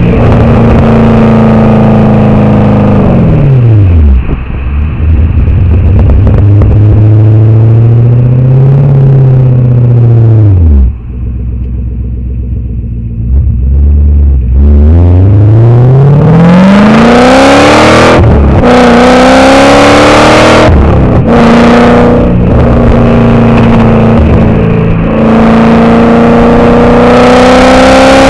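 Porsche 928 S4's V8 exhaust, heard right at the tailpipe while driving. The engine note falls away twice and runs lower and quieter for a few seconds near the middle. It then climbs steeply under acceleration with several brief breaks, settles into a steady run and rises again near the end.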